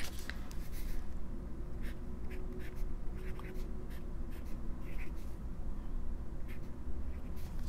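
Lamy Joy broad calligraphy-nib fountain pen writing a word on notebook paper: short, irregular nib strokes.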